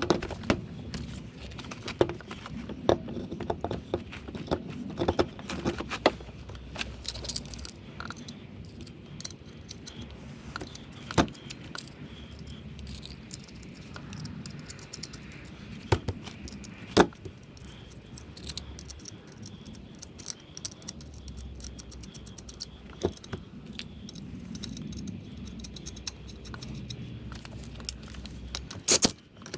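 Metallic clinks, taps and jangles of hand tools and brake parts being handled during front brake pad work, scattered irregularly, with a few sharper knocks.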